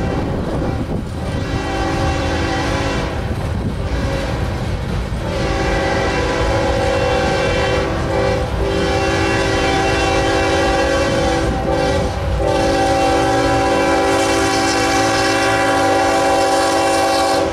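Diesel locomotive air horn sounding a chord in several long blasts with short breaks, louder near the end as the locomotive approaches. Underneath is the steady rumble and clatter of loaded flatcars rolling past.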